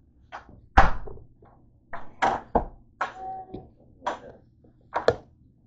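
A run of irregular knocks and thumps, about a dozen, the loudest about a second in. One near the middle is followed by a short ring.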